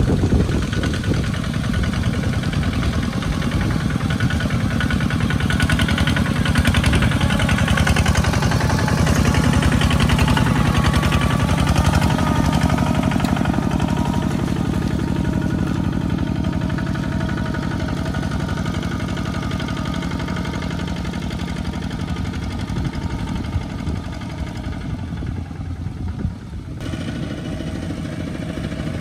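Single-cylinder diesel engines of two-wheel walking tractors chugging steadily under load as they pull trailers of rice sacks through mud and over dirt tracks. The sound changes abruptly near the end as a different tractor comes in.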